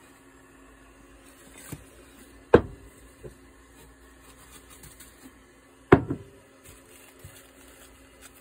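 Two sharp knocks about three seconds apart, with a few fainter taps, over quiet room tone with a faint steady hum: small handling noises at a kitchen hot plate while tea bags are unwrapped.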